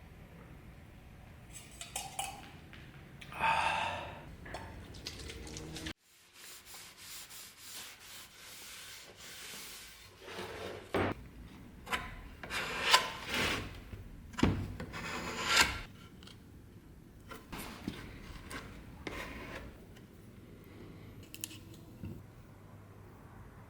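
Hand scraping and rubbing on wooden parts, as in sanding or working putty into wood, in separate uneven strokes. An abrupt edit cut comes about six seconds in.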